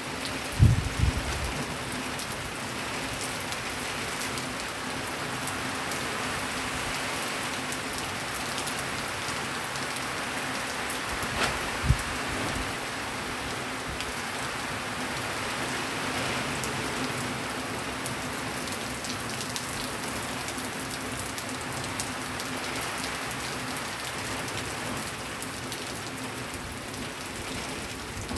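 Steady heavy rain falling on the ground, with water running off a roof edge. A faint steady hum sits underneath, and two sharp thumps stand out, one just after the start and one about halfway through.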